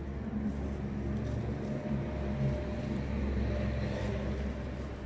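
Steady low mechanical hum of an engine or motor running, a little louder in the middle.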